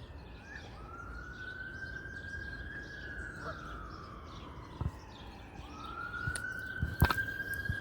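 A siren wailing: one long tone that slowly rises, holds and falls, then starts over about five and a half seconds in. A few sharp clicks, the loudest about seven seconds in.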